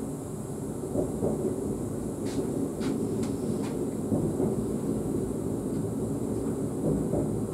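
ES2G Lastochka electric multiple unit running along the track, heard from inside its cab: a steady low rumble, with a few faint high ticks about two to four seconds in.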